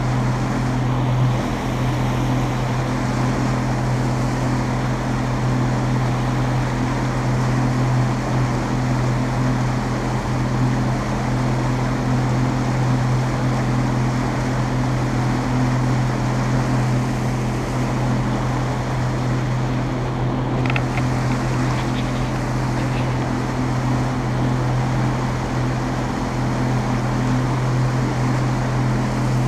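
Motorboat engine running steadily at cruising speed, an even low hum, with wind and water rushing past the hull.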